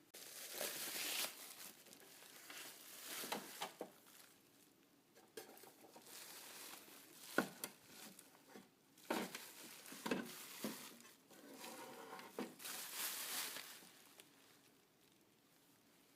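Packaging rustling and crinkling as it is handled, in irregular bursts with light clicks and taps between them.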